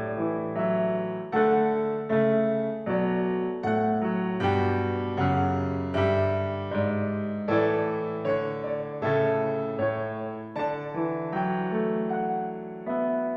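Background piano music: a gentle melody over chords, with notes struck and fading in a steady, unhurried rhythm.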